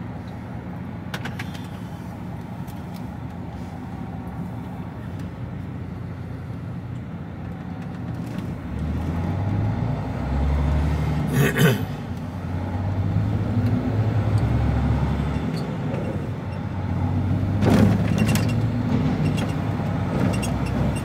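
HGV container lorry's diesel engine heard from inside the cab: idling steadily in stationary traffic, then pulling away under load about eight seconds in, its note stepping up and down through gear changes. Two brief sharp noises cut through, one around the middle and one near the end.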